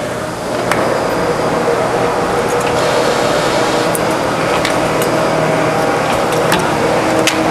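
CNC machine running steadily with a humming drone and a few sharp clicks.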